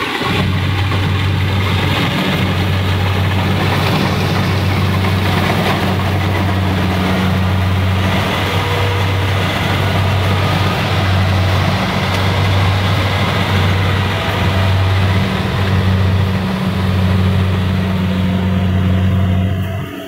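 Rice combine harvester working in the field: a steady engine drone with a dense mechanical rattle from the cutting and threshing works over it.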